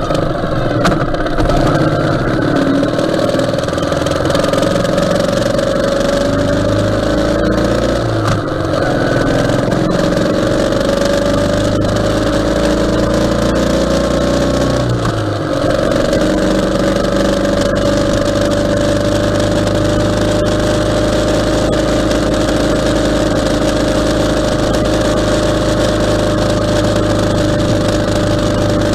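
Ural sidecar motorcycle's flat-twin engine running on the road, with steady wind and road noise. Its pitch drops briefly and climbs again twice, about a third of the way in and again about halfway, as it changes gear, then holds a steady cruise.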